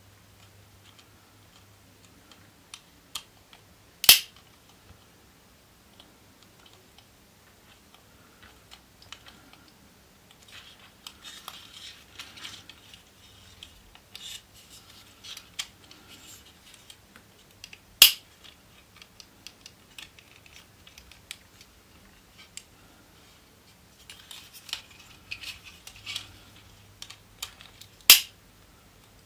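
Small screwdriver working screws into a plastic model-car part, with the plastic pieces being handled: light scraping and scattered small clicks, and three sharp, louder clicks spread far apart.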